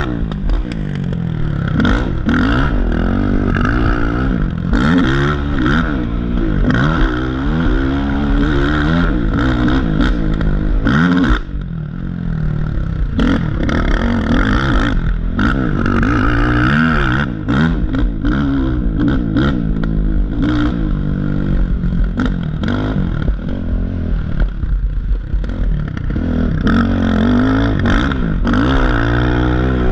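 Race ATV engine revving hard, the pitch rising and falling with each throttle blip through the turns and ruts. The chassis clatters and knocks over the bumps. About eleven seconds in, the throttle is briefly shut off before the engine pulls again.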